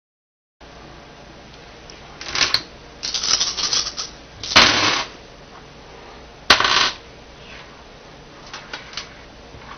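Small dice being handled on a wooden tabletop: a rattle as they are gathered and shaken, then two loud clatters as they are thrown down, and a few light clicks near the end as they settle.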